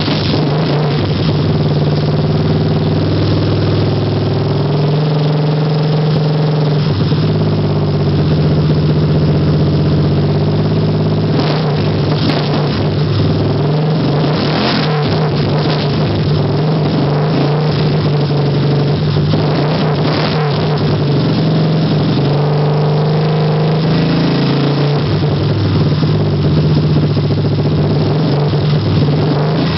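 1978 Honda CB125 motorcycle engine running steadily, with a few brief rises in revs as the throttle is blipped.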